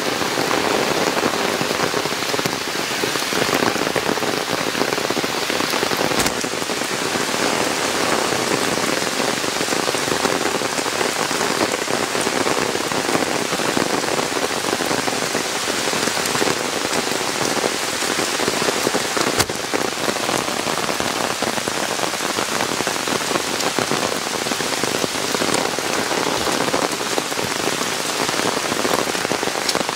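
Heavy rain falling steadily through forest trees onto leaves and a wet dirt trail, with two single sharp ticks along the way.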